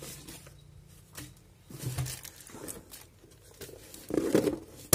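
Paper and plastic packaging rustling and crinkling as hands sort through an opened box, in scattered bursts, with the loudest bout of handling shortly before the end.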